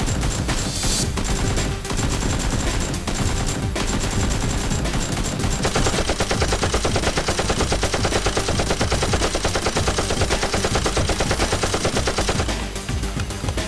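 Gunfire: a few scattered single shots, then from about six seconds in a long, even burst of rapid automatic fire that stops shortly before the end.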